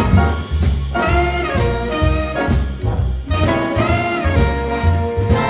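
Jazz music with brass instruments over a moving bass line.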